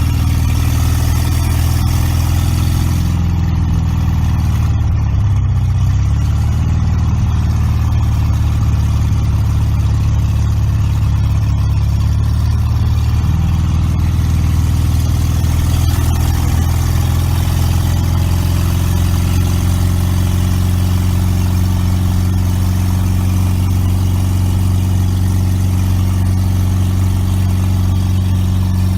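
A freshly installed 350 Chevy small-block V8 idling steadily, its speed dipping and picking back up briefly about five seconds in.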